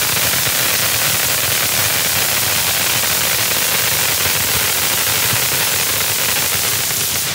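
Black Cat Wild Card firework fountain burning, a loud, steady hiss of its spray of sparks.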